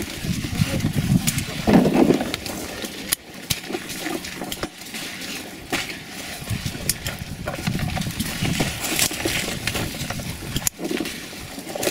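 Grape picking by hand: vine leaves rustling and occasional sharp snips of secateurs cutting grape bunches, over a shifting low rumble.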